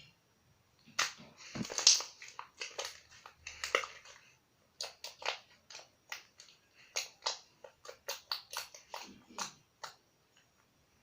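Slime being squeezed and poked by hand, popping and crackling in sharp, irregular clicks, about two to three a second.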